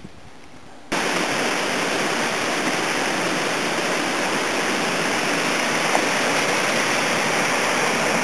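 Steady rush of a small moorland stream tumbling over a cascade, starting abruptly about a second in.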